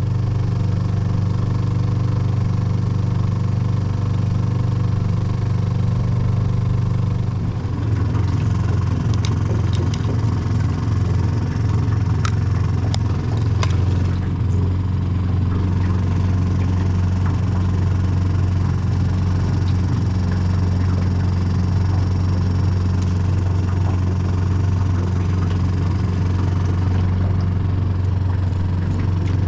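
Boat's outboard motor running at low speed, a steady hum whose note shifts slightly about seven or eight seconds in. A few light clicks come between about nine and fourteen seconds.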